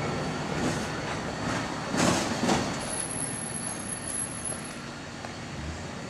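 Street traffic noise, with a louder swell about two seconds in as a vehicle goes by, and a thin, very high squeal from about three seconds in until nearly five.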